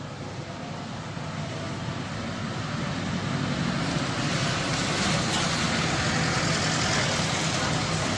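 Steady rumbling noise of passing traffic, growing louder, with no clear bird calls in it.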